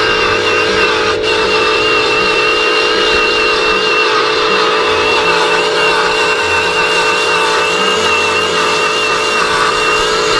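Remote-control toy forklift driving, its small electric motor and gears giving a steady whine.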